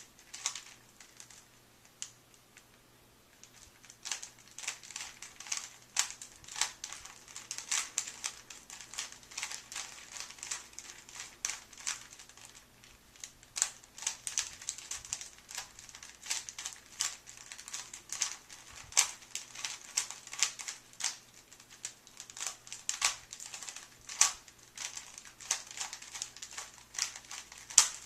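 Plastic 3x3 Rubik's Cube being turned by hand: a quick, irregular clatter of clicks as the layers are twisted, with a short lull about two seconds in.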